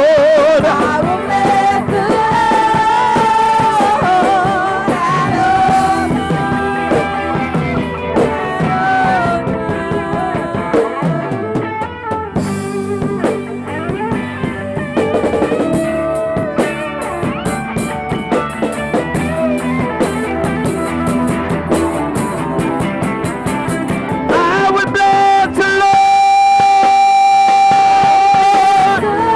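Live worship band playing: electric guitars, bass guitar and drums, with voices singing. The band drops back in the middle and swells again near the end, where a long note is held.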